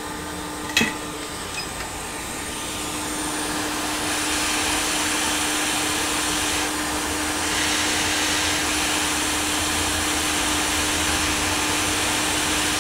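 Hot air rework station blowing on a laptop motherboard to desolder and swap a small surface-mount resistor: a steady airflow hiss over a steady hum, growing louder between about two and four seconds in. There is one short click about a second in.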